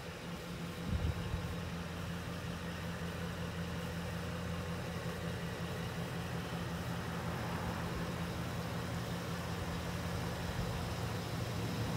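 Ford F-250 Super Duty pickup's engine idling steadily, with a short thump about a second in.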